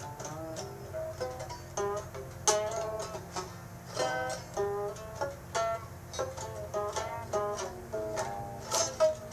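Music on a plucked string instrument: single picked notes and short runs, each note struck sharply and fading, over a steady low hum.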